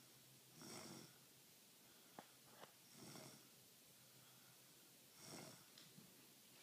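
A sleeping person snoring faintly: three slow, breathy snores a little over two seconds apart, with two small clicks between the first and second.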